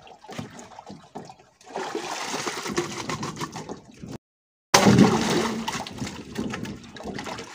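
Ice and water tipped out of freezer tubs into a plastic drum, pouring and splashing. It breaks off briefly about four seconds in, then starts again with a sudden louder splash that trails away.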